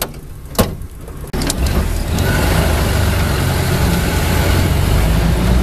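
A sharp knock, then the 1978 UAZ 469's Volga 2.5-litre four-cylinder OHV engine starts about a second in and settles into steady running at idle.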